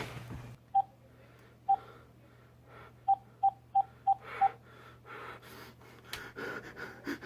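Phone keypad beeps as a number is dialed: two single beeps about a second apart, then a quick run of five. Faint breathing between the beeps.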